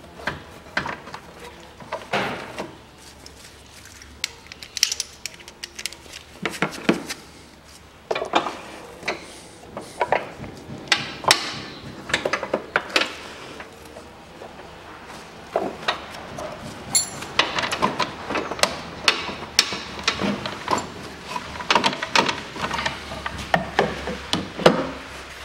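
Metal hand tools clicking and knocking: a socket ratchet and spanner working the air filter housing's through-bolt, which spins in its hole. Irregular taps and clinks, thicker in the second half.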